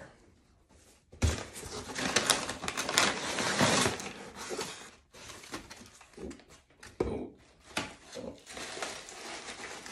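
Brown kraft paper rustling and crinkling as a paper-wrapped potted plant is handled and lifted out of a cardboard box, starting about a second in and loudest for the next few seconds. A single knock about seven seconds in.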